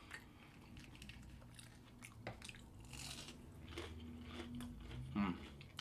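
Close-miked chewing of crispy fried food: soft, scattered crunches and mouth sounds.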